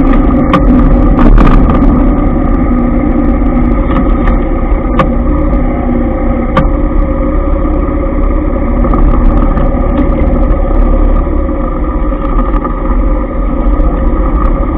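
Motorbike engine running steadily at low speed amid dense, slow-moving scooter and car traffic, with a few sharp clicks.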